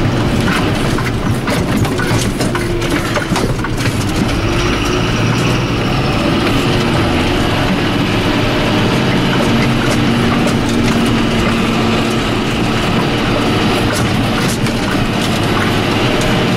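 John Deere 7530 tractor's six-cylinder diesel engine running steadily on the move, with the Marston trailer's body and drawbar rattling and knocking over the ground.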